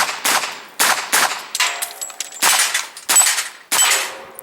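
Pistol-caliber carbine firing about six shots at an uneven pace, with steel targets ringing after some of the hits.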